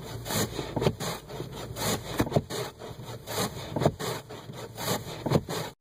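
Snow being cleared off a car's windshield: a run of irregular rasping strokes, roughly two a second, over a low steady rumble.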